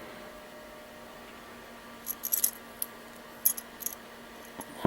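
Light metallic clinks and rattles from the wire buzzbait and its blade being handled, in small clusters of a few clicks, the busiest about two and three and a half seconds in.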